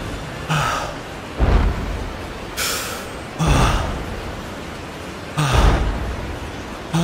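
Eerie staged sound-effect track: deep booms about every two seconds, with hissing rushes and short falling tones between them.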